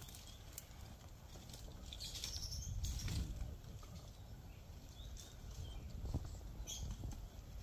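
Outdoor bush ambience: scattered rustling and clicks over a low rumble, with a few short bird chirps.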